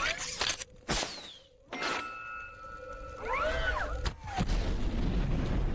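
Film action sound effects for the Iron Man armour: a rising whoosh and sharp hits as a small rocket is fired from the suit's outstretched arm, then a whining, wavering electronic tone, and a low rumble building near the end.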